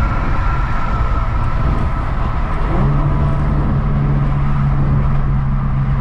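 Infiniti G37 sedan's V6 engine running while driving, a steady drone whose note settles to a new, lower pitch about three seconds in.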